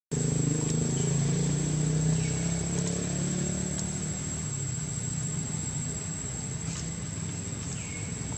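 A low, steady engine drone from a vehicle, strongest at the start and slowly fading, over a thin, steady high insect whine. Two short faint chirps come a couple of seconds in and near the end.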